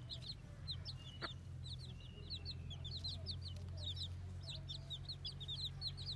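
Baby chicks peeping: a dense, overlapping run of short, high chirps, several a second, over a steady low hum.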